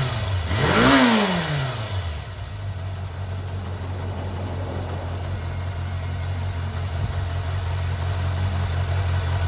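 Kawasaki Zephyr 400 air-cooled inline-four engine blipped once about a second in, the pitch rising and falling, then settling to a steady idle. The seller describes it as running without abnormal noise.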